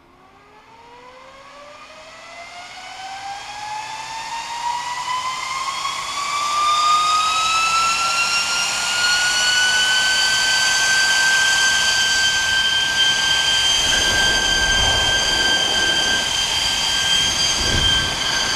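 High-speed 12 V Delta server cooling fan, rated 13,800 rpm, spinning up from rest: a whine that rises in pitch and grows loud over about ten seconds, then holds steady at full speed with a rush of air. A couple of low bumps near the end.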